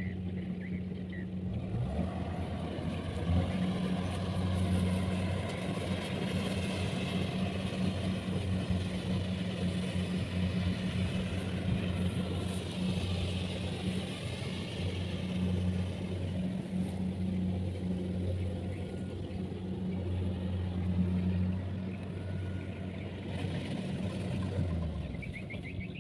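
Engine of a rice harvesting machine running steadily under load, with a continuous mechanical rushing noise over its low hum. The lowest part of the hum drops away near the end.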